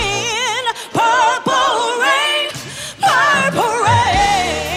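A woman singing wordless, melismatic runs and held notes with a wide, fast vibrato, over sustained low accompaniment chords.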